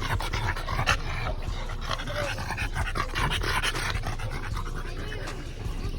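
A dog panting with quick, steady breaths.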